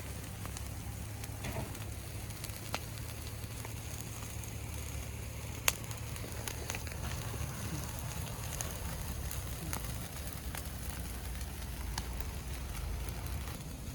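Wood campfire crackling, with scattered pops and one sharper pop about six seconds in, over a steady low rumble.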